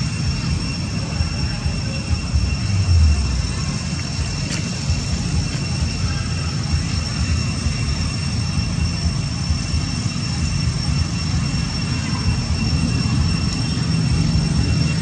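Steady low rumble of wind buffeting the microphone outdoors, with a thin, steady high-pitched tone above it.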